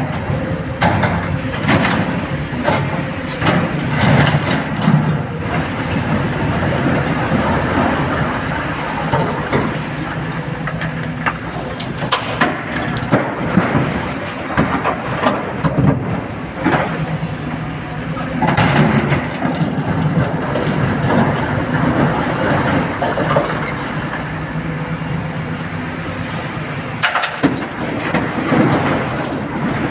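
Hydraulic excavator's diesel engine running steadily under load, with repeated sharp clanks and knocks of the digging and loading work throughout.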